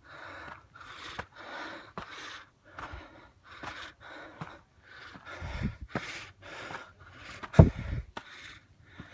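Heavy, quick breathing of a hiker winded from climbing, a rapid run of breaths in and out, with light footfalls on wooden trail steps. Two low thumps, the louder one about a second and a half before the end.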